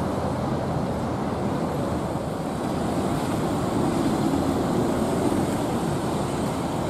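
Steady street traffic noise on a wet road, with a van passing close by about four seconds in.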